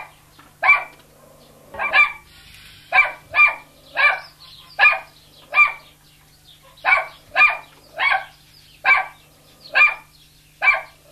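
A dog barking over and over, short high-pitched yaps coming about one to two a second with brief gaps.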